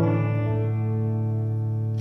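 Electric guitar through an amp: a closing chord is struck and left ringing, slowly fading as the song ends.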